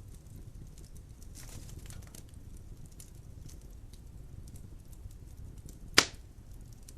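Wood fire crackling in a fireplace: scattered small pops and ticks over a low rumble of flame, with one loud sharp pop about six seconds in.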